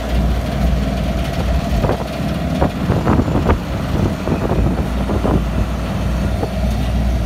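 Asphalt paver's diesel engine running steadily as it lays macadam, a low drone with a steady higher whine, and a few short knocks between about two and five seconds in.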